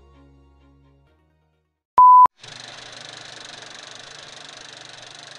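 Old-film countdown leader sound effect: soft music fades out, then after a short silence a single brief beep sounds about two seconds in, followed by a steady hiss of film noise.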